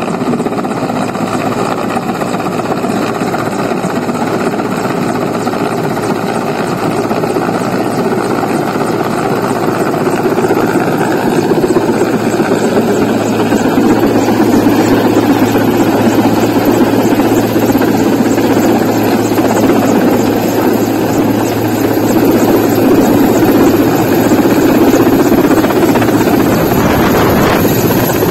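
Mil Mi-8-family transport helicopter coming in to land low overhead: steady rotor and turbine noise that grows louder about ten seconds in as it closes on the landing spot.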